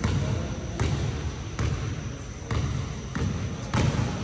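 A run of heavy thumps, about one every 0.8 seconds, each trailing off in a short low rumble.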